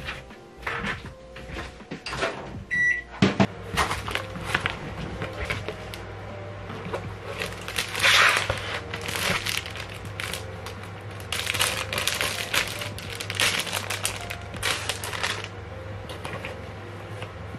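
Microwave oven being loaded and shut with a couple of knocks, then a short keypad beep about three seconds in, after which a low steady hum sets in. Through most of the rest, plastic wrapping crinkles and rustles as bagged goods are unwrapped.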